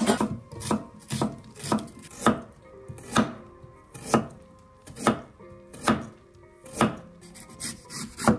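Chef's knife slicing carrot and lotus root on a wooden cutting board. It gives a dozen sharp knocks, about two a second at first, then slowing to about one a second.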